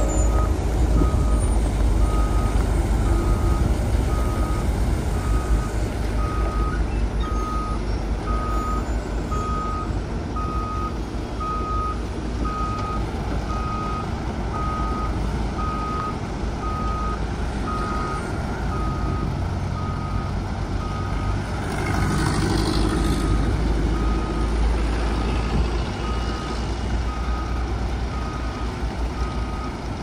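Dump truck's reversing alarm beeping steadily at one pitch, about once a second, over the low running of its diesel engine as it backs up. About 22 seconds in there is a short burst of hiss.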